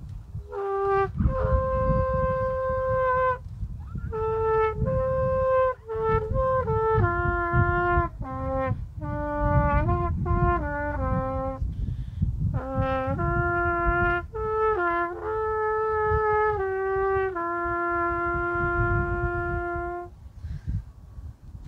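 Solo trumpet playing a slow melody in sustained phrases, ending on a long held note about 20 seconds in, over a low rumble.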